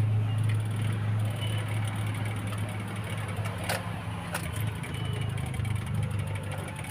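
Maruti Omni engine turning over on the starter without catching, a steady low drone that slowly fades, with a couple of light clicks midway. The engine cranks but will not start.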